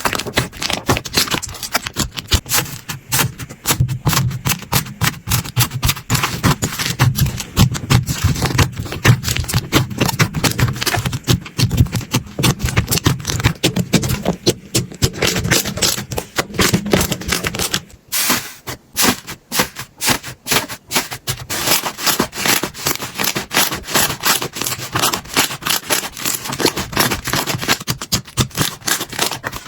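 Slime being squeezed and worked by hand: a dense run of quick clicks and crackling pops, with a short lull about eighteen seconds in before it picks up again.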